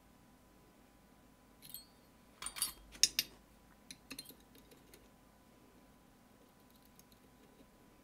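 Metal lock picks clicking and clinking against a lock and the jig that holds it: a cluster of sharp metallic clicks from about two to five seconds in, loudest around three seconds, then a few faint ticks.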